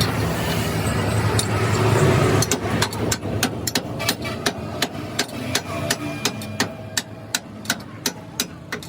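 A low steady engine-like hum, then from about two and a half seconds in a hammer striking metal in a quick even series, about three blows a second. The blows grow fainter near the end.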